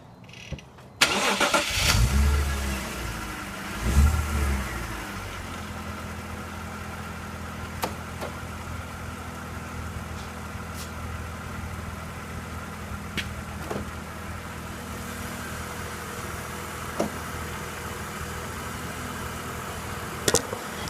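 BMW engine starting: the starter cranks about a second in, the engine catches with a rev flare, surges once more, then settles into a steady idle. The idle is free of VANOS rattle, the unit having been repaired. A few light clicks sound during the idle.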